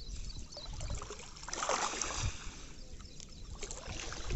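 Legs wading through shallow river water, sloshing and splashing, with a louder splash about halfway through.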